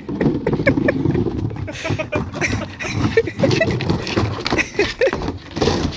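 A skateboard rolling and rumbling over the humps of a wooden pump track, with a dog panting as it rides.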